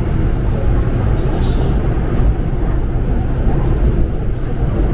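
Subway station ambience: a steady low rumble with indistinct voices in the background.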